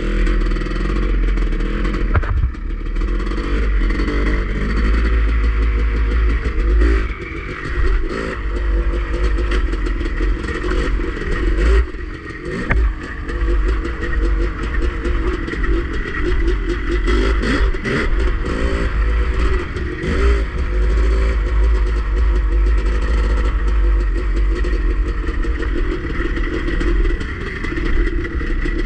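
Dirt bike engine running under changing throttle while riding a rough dirt trail, revving and easing off a few times, with a heavy low wind rumble on the microphone.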